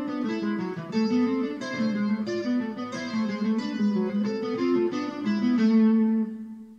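Acoustic guitar played with a pick: a melody of single picked notes over low notes. Near the end the playing stops on a held note that rings and fades away.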